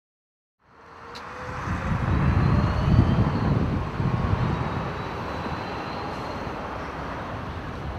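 Outdoor town ambience fading in less than a second in: a low, unsteady rumble of distant traffic with wind buffeting the microphone, loudest a couple of seconds in and then steady.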